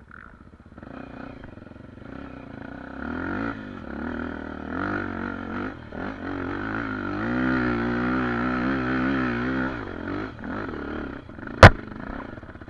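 Dirt-bike engine revving hard with a wavering pitch and growing louder, then dropping away about ten seconds in: the engine dying, which the rider puts down to the fuel tap being left shut. A single sharp, loud knock follows near the end.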